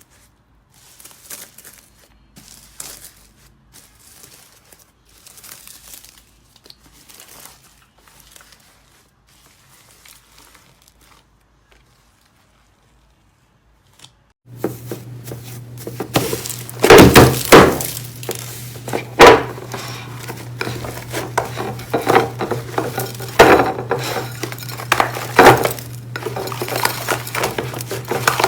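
Slime being squeezed and pressed, making soft crackles at first. After a short silence, a louder stretch follows with crunchy crackling and sharp pops over a steady low hum.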